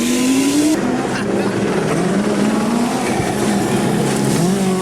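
Rally car engine at high revs, its pitch climbing, then stepping and dropping with gear changes before climbing again near the end, over a steady hiss. The sound changes abruptly under a second in, as at a cut between shots.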